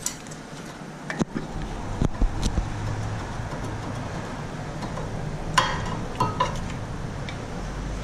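Light metallic clicks and clinks of brake pads being worked out of a front brake caliper bracket, a brighter cluster of clinks a little past the middle, over a low steady hum.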